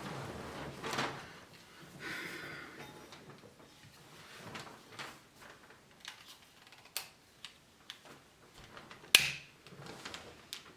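Handling noise, then a series of sharp clicks from a hand-held lighter being struck to light a candle, the loudest about nine seconds in.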